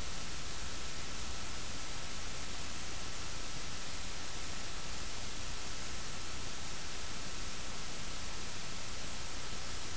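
Steady static hiss from the recording itself, with a faint steady high tone underneath and nothing else happening.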